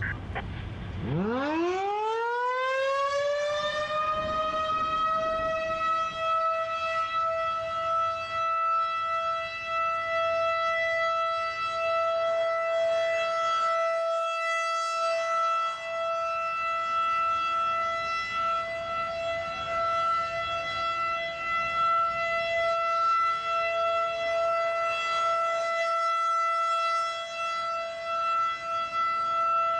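Federal Signal 2001-DC outdoor warning siren winding up from rest about a second in, its pitch rising over a few seconds to a single steady tone that it then holds as a steady alert signal during a scheduled siren test.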